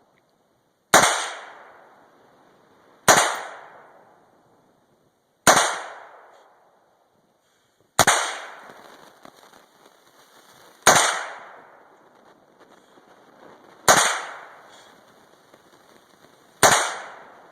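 Seven single rifle shots from an M4 carbine, slow aimed fire about two to three seconds apart, each crack followed by a long echo that dies away.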